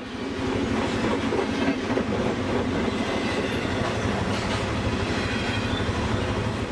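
A train rolling by: a steady, loud rumble and clatter of rail wheels.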